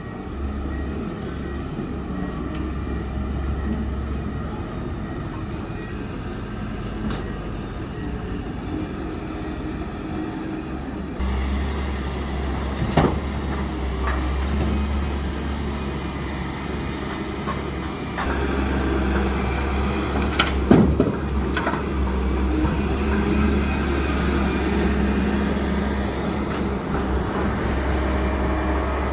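Heavy construction machinery engine running with a steady low rumble, with two sharp knocks partway through.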